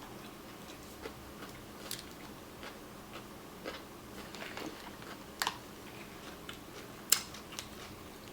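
Snow crab shell cracking and snapping while being broken open and picked apart for the meat: scattered sharp clicks and cracks, the loudest about two, five and a half and seven seconds in.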